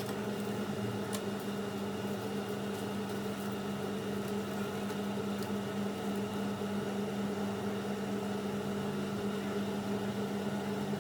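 Philips HD9200 air fryer running, its fan giving a steady, even hum.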